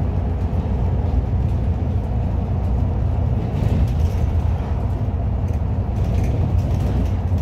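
MAZ-203 low-floor city bus driving, heard from inside the passenger cabin: a steady low rumble of engine and road noise.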